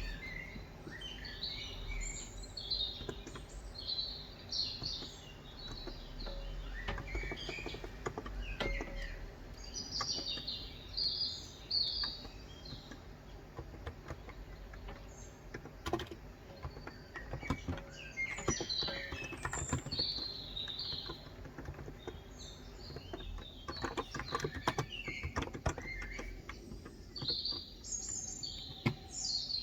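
Small birds chirping again and again, with scattered runs of keystrokes on a Cox Endeavor electrostatic capacitive keyboard with 35 g switches between them.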